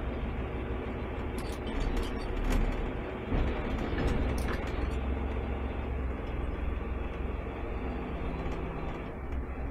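Autocar garbage truck with a New Way Sidewinder automated side-loader arm, heard from the cab: engine running steadily while the hydraulic arm grabs and tips a trash cart, with several knocks between about one and a half and four and a half seconds in.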